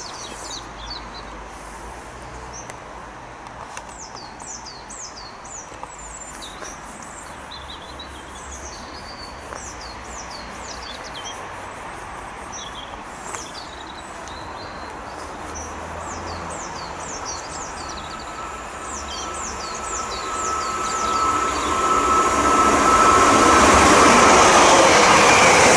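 Small birds chirping while a Great Western Railway Class 158 diesel multiple unit approaches. Its noise builds from about two-thirds of the way through, with a high steady ringing tone for several seconds, and is loudest near the end as the train runs in.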